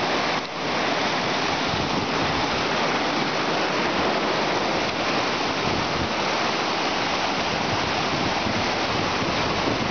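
Glacial meltwater stream rushing over rocks: a steady, loud rush of water.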